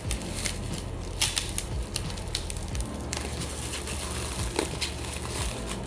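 Packaging being handled and opened: irregular crackles and sharp clicks, with a low steady hum underneath.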